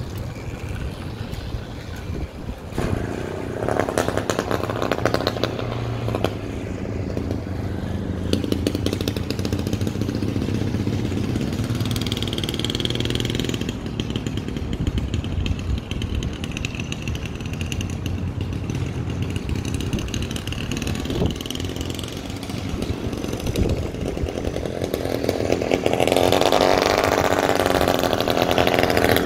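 A 49cc gasoline engine on a motorized bicycle, pedal-started, catching about three seconds in and then running as the bike rides away. It grows louder near the end as the bike comes back.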